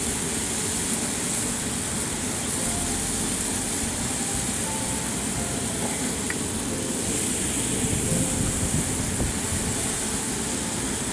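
Steady hissing rush from a small Weber gas grill running with its burners on low.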